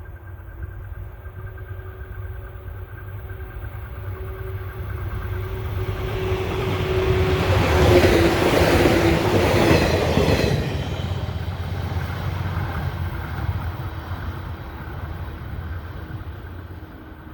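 Shinano Railway 115-series electric train passing close by. It grows louder, is loudest about eight to ten seconds in, then fades away, and a steady tone in its sound drops slightly in pitch as it goes by.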